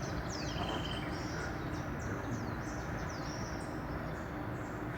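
Small birds calling outdoors: a string of quick, high chirps that sweep downward in pitch, over a steady low hum and background noise.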